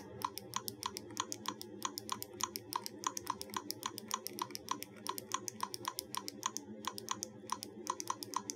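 Puchi Puchi infinite bubble wrap keychain toy pressed over and over in quick, even succession, about five presses a second. Each press gives a button click together with the toy's electronic bubble-wrap pop from its small speaker.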